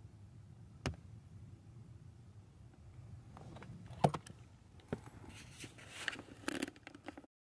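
Low steady rumble with a few sharp clicks and knocks, the loudest about four seconds in, then a busier patch of rustling and knocking near the end before the sound cuts off.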